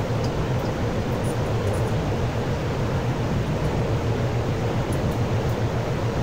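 Steady low mechanical drone with an even hiss over it, unchanging in level, from barn machinery.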